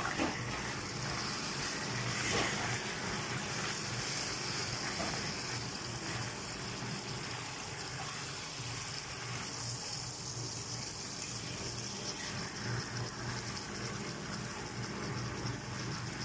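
Chicken wings frying in oil in a pan, a steady sizzle, with a couple of knocks from the stirring utensil against the pan in the first few seconds.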